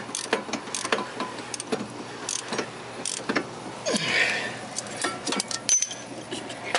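Hand tools clicking and clinking against metal in irregular taps while a tight fastener on the wheel is worked loose, with a brief scraping rush about four seconds in.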